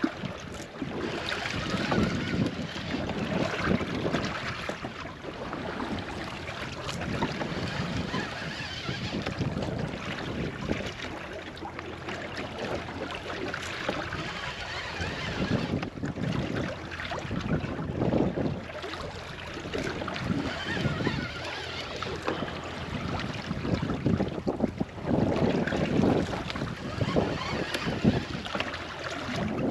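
Water slapping and rushing against a small boat's hull in a strong running tide, with wind buffeting the microphone. The noise swells and eases unevenly, with louder surges around a quarter of the way in and again near the end.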